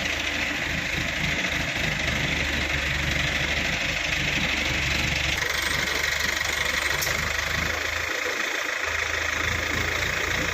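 A vehicle engine idling steadily close by, with a slight change in its tone about five seconds in.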